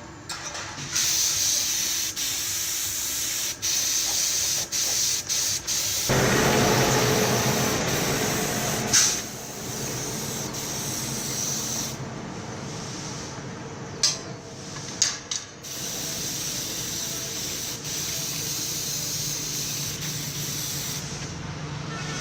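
Spray paint hissing in long passes that stop and restart several times, with a few short ticks in between.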